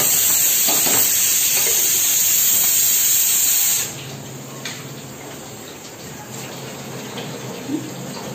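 Aluminium pressure cooker venting steam through its weight valve on the stove: a loud hiss that cuts off suddenly about four seconds in. After it, a quieter steady sound of water running from a kitchen tap.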